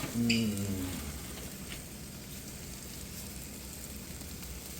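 Food frying in a pan: a steady sizzling hiss. A brief wordless voice sounds near the start.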